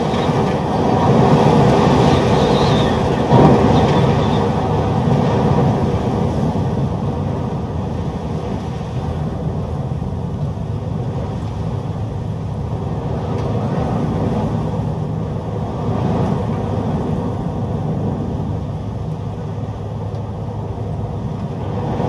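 Strong storm wind blowing in a steady, heavy low rush, loudest in the first few seconds, with a brief harder gust about three and a half seconds in.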